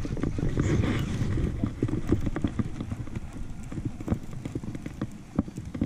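Irregular knocks and slaps on a fishing boat, several a second, over a low rumble of wind on the microphone.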